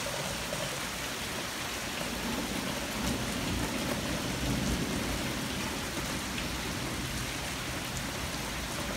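Heavy rain pouring steadily in a thunderstorm, with a low rumble of thunder swelling from about two seconds in and dying away a few seconds later.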